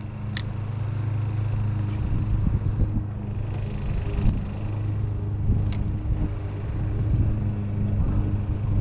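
Steady low mechanical hum, with a few short clicks over it.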